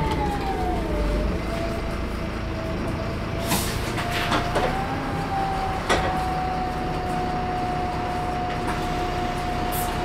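Turbocharger whine from a Euro 4 VDL SB200 bus's diesel engine, heard inside the saloon over the engine's running: a high whine that falls in pitch about a second in, then rises slightly and holds steady. A few sharp knocks or rattles come near the middle.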